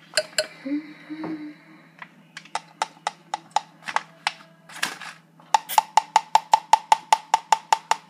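A spoon knocked repeatedly against the rim of a cup or bowl, likely to shake off crumbs or pudding: a few scattered taps, then a fast, even run of about five ringing taps a second in the second half.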